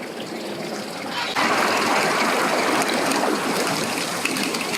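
Water gushing and splashing steadily, coming in suddenly louder about a second and a half in.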